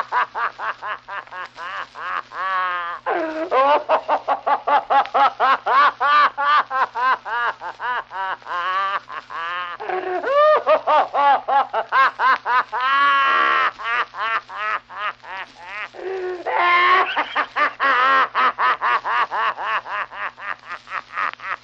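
An old man laughing hard in long runs of rapid "ha-ha" pulses, about four or five a second, broken now and then by a long drawn-in breath or wheeze. A faint steady hum lies underneath, as on an old recording.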